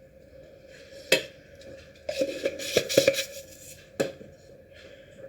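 Kitchen clatter: a sharp knock about a second in, a burst of clattering knocks a second later, and one more knock near the end, over a faint steady hum.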